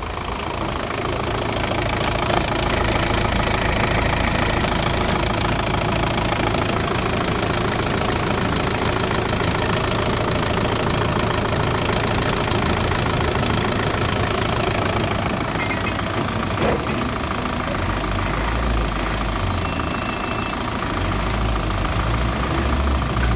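Audi 1.9 TDI (AFN) four-cylinder turbodiesel engine idling steadily in the car with the bonnet open.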